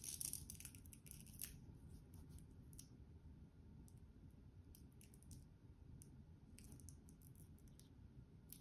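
Near silence with faint scratchy rustles and small clicks from a wristwatch and its nylon strap being handled and flexed by fingers, a little louder right at the start.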